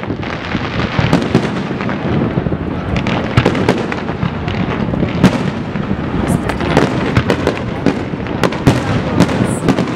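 Aerial fireworks shells bursting in quick succession, a dense barrage of sharp bangs over a continuous low rumble.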